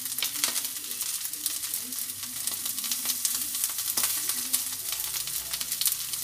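Small potato patties (aloo tikki) frying in desi ghee on a hot tawa: a steady sizzle with many small crackling pops.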